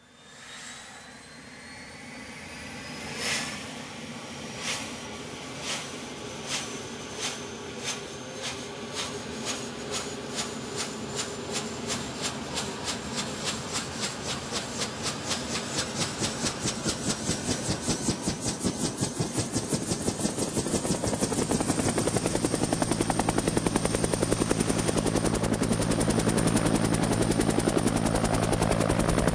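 Huey-type (Bell UH-1 family) helicopter starting up. A turbine whine rises in pitch, and the rotor's blade beats begin slowly a few seconds in, then come faster and louder as the rotor spins up to speed.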